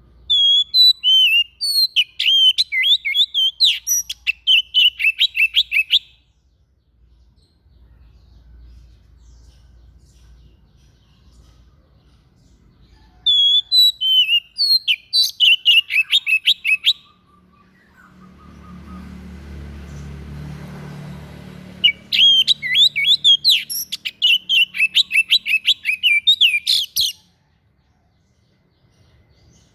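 A white-breasted songbird singing in three bouts of rapid, high chirping phrases, the last two separated by a few seconds of low rumbling noise.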